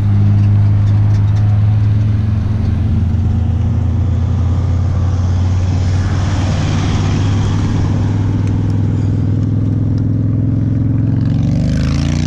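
A road vehicle's engine idling steadily close by. Near the end an engine revs up with a rising note as a motorcycle pulls away.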